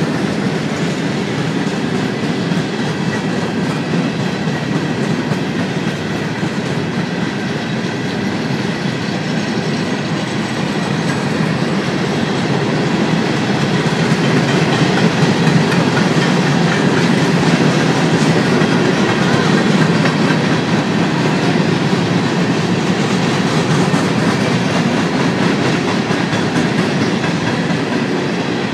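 A freight train of coal hopper cars rolling past: a steady noise of steel wheels running on the rails, a little louder in the middle.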